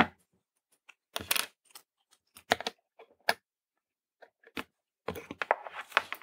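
Scattered light clicks and taps of small hard parts, a printed circuit board and cut pin-header strips, being handled and set down on a hard work surface, with a small cluster of taps near the end.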